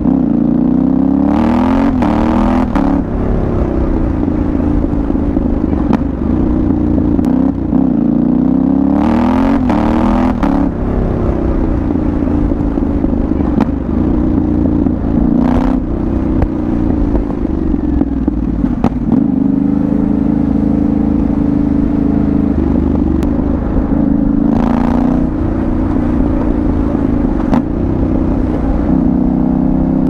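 2022 Yamaha Ténéré 700's parallel-twin engine running through an aftermarket Dominator GP1 exhaust while being ridden. It revs up about a second in and again around nine seconds, easing off in between, then holds steadier revs with smaller rises through the rest.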